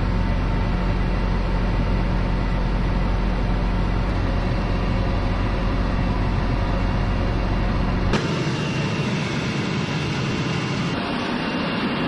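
Tractor engine running steadily while pulling a Claydon Hybrid seed drill, heard from inside the cab. About eight seconds in, the sound changes abruptly to a thinner, noisy rush of the drill working through the soil, with the engine hum much fainter.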